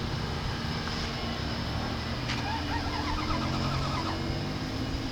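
Vehicle driving along a road: steady engine and road noise, with a brief faint warbling sound about halfway through.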